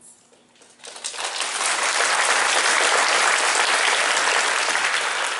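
Audience applauding: dense clapping that starts about a second in, quickly builds to full strength and holds steady.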